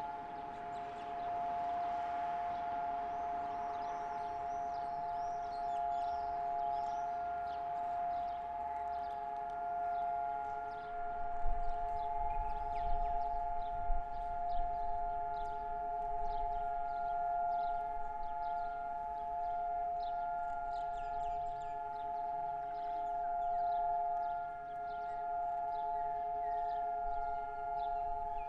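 Civil defense siren sounding one steady, unwavering chord: Israel's two-minute memorial siren for fallen soldiers and victims of terrorism. Short high chirps are scattered over it, and a few brief low bumps come about twelve to fourteen seconds in.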